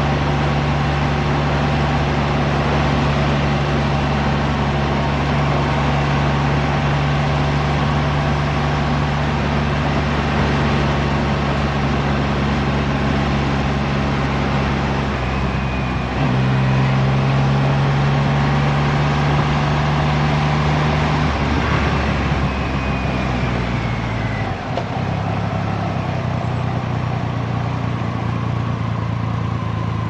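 Triumph Rocket 3 motorcycle's three-cylinder engine running steadily under way, heard from the rider's seat with wind rush. The engine note changes pitch about halfway through, then drops lower and a little quieter in the last few seconds as the bike eases off.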